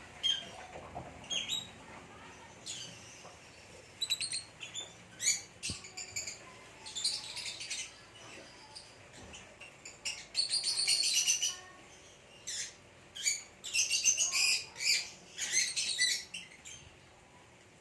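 Lovebirds, a green Fischer's lovebird and a parblue, chirping: short, sharp, high chirps in quick rapid-fire runs, busiest in the second half.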